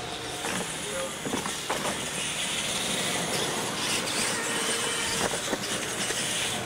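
Radio-controlled monster trucks racing across a dirt track: a steady whir of their motors and drivetrains and the hiss of tyres on dirt, with a few short knocks as they hit the ramps.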